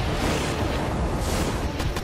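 Animated magical energy surge sound effect: a dense, steady rumble with a heavy low end.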